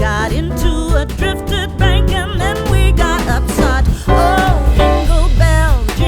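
Background music: a track with a steady, heavy bass line under a wavering lead melody.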